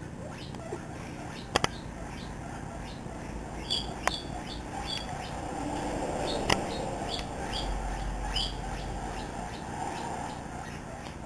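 Young guinea pig giving short, high-pitched squeaks like a squeaky toy, one after another about twice a second, broken by a few sharp clicks or knocks.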